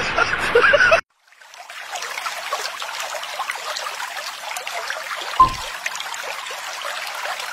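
Water trickling and running steadily like a small stream, starting right after an abrupt cut about a second in, with one short thump about five seconds in.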